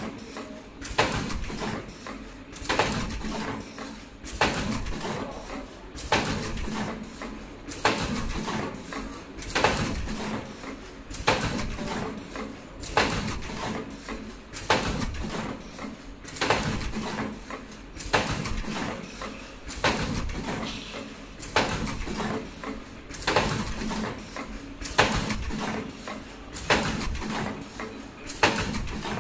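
Richpeace automatic surgical mask machine running in production, a short noisy stroke repeating about every 1.7 seconds, over a steady faint high whine and a low hum.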